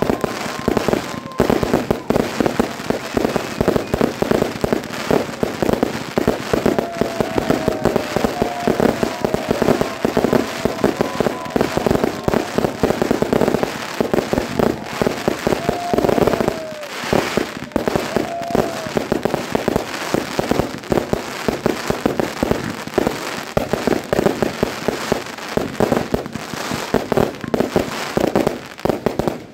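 Fireworks display: a dense, continuous barrage of aerial bursts, with rapid bangs and crackling throughout and a few short whistles.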